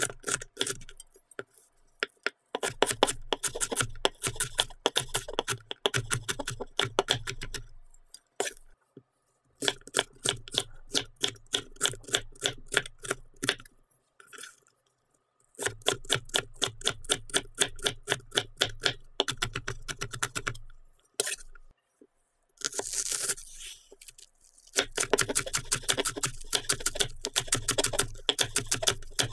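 Chef's knife chopping crisp vegetables on a wooden cutting board: quick, evenly spaced knocks of the blade through bell pepper and then green onion onto the board, in several runs with short pauses. A brief scraping rustle comes partway through.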